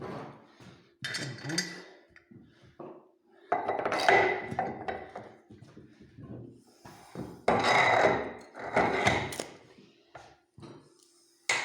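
Metal clanking and knocking as a wheel is set onto the cone and shaft of a manual tyre-changing stand, in several irregular bouts with a sharp knock near the end.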